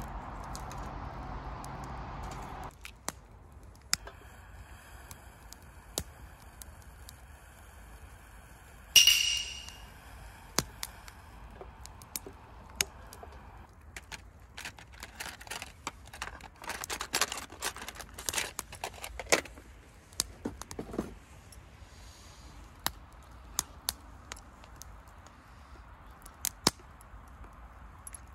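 Wood campfire crackling with scattered sharp pops, over a steady hiss that stops about three seconds in. About nine seconds in there is a single bright metallic clink that rings for about a second, and from about fourteen to twenty-one seconds a packet is rustled and crinkled by hand.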